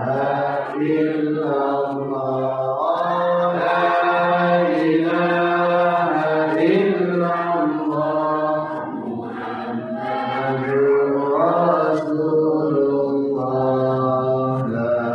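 Islamic dhikr chanted by a single voice in long, drawn-out melodic phrases, one after another with no break.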